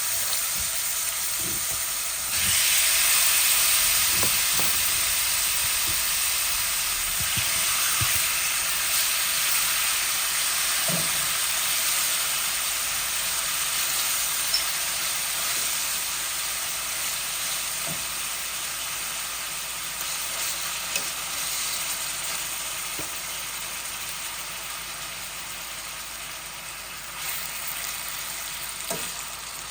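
Seasoned chicken thighs frying in a hot skillet, a steady sizzle that grows louder about two seconds in and then slowly dies down. There are a few soft knocks near the start.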